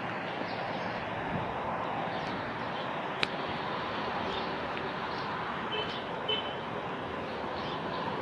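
Steady noise of highway traffic. A single sharp click comes about three seconds in, and two short high chirps come around six seconds in.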